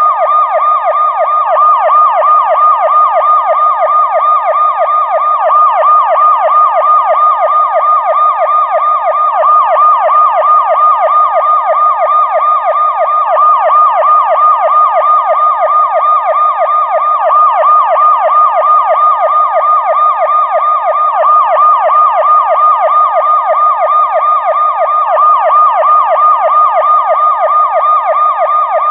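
Police car siren on a fast yelp: a loud tone sweeping up and down several times a second, steady and unbroken.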